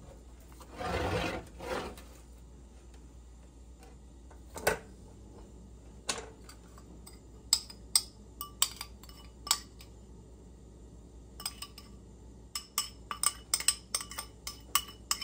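Raw chuck steaks being flipped with metal tongs on a metal sheet pan: a short shuffle of meat and metal and a couple of sharp clicks. Then a run of quick ringing clinks, a metal spoon tapping and scraping a ceramic bowl as the olive-oil seasoning is spooned over the steaks, most frequent near the end.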